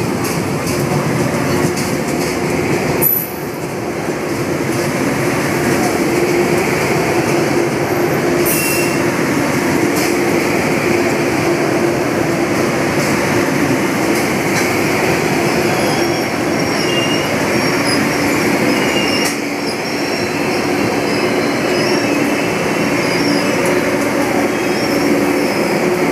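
LHB passenger coaches of an express train rolling past on the rails: a steady rumble of wheels on track with a humming tone, a brief knock about three seconds in, and a few faint short squeals.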